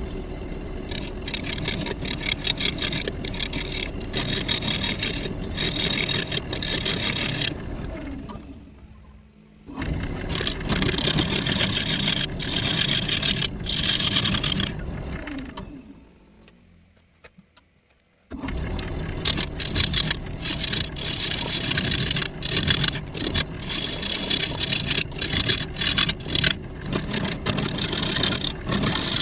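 Wood lathe spinning a lopsided walnut blank while a turning tool cuts it: a rough scraping with many sharp ticks of the tool against the uneven wood. The sound dies away twice and comes back suddenly.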